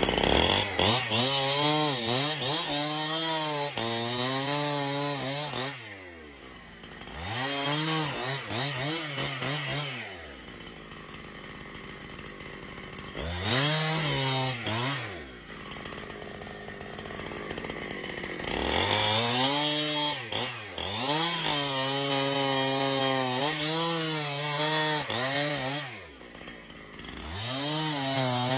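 Gasoline chainsaw revving high as it cuts wood, its pitch wavering under load. It drops back to idle several times between cuts and then revs up again.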